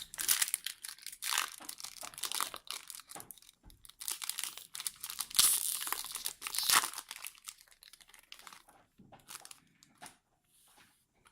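Foil trading-card booster pack wrapper crinkling and tearing as it is opened, a dense crackling that dies away about nine seconds in.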